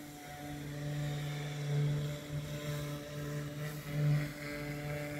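Background music: a sustained low drone with higher overtones, swelling slightly about two seconds and four seconds in.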